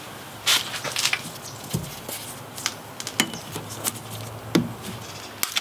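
A wrench clicking and knocking against metal in irregular taps as the air-cleaner mounting bolts and nuts on a small Isuzu diesel engine are loosened, with a faint low steady hum underneath.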